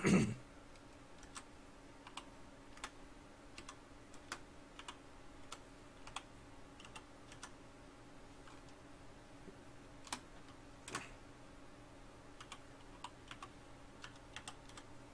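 Computer keyboard typing: faint single keystrokes at irregular intervals with pauses between, a few of them louder.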